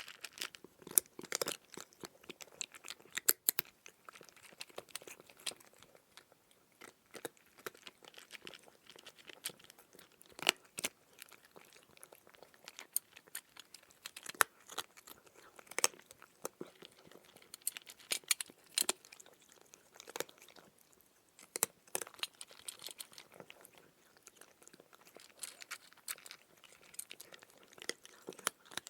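A cat chewing dry kibble: irregular sharp crunches, coming in bouts with short pauses between them.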